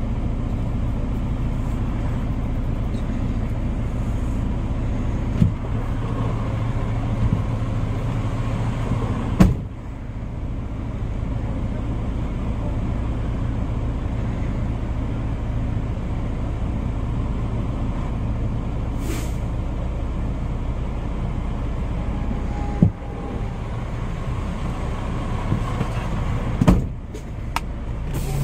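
Semi-truck diesel engine idling, heard from inside the cab as a steady low drone. A few sharp clicks or knocks stand out over it, the loudest about nine seconds in.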